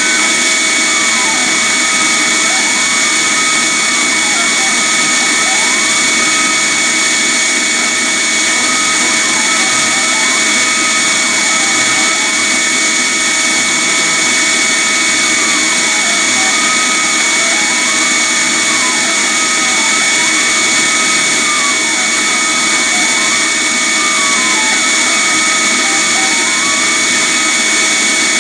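A vacuum runs steadily on the Pilot Pro CNC router during laser engraving. Over it, a fainter whine from the machine's motion repeatedly dips in pitch and climbs back as the axes slow and speed up between moves.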